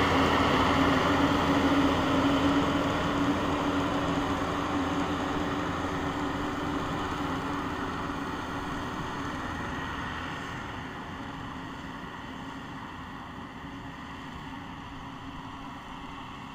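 Yanmar YH850 crawler combine harvester's diesel engine running steadily, growing fainter as the machine drives away.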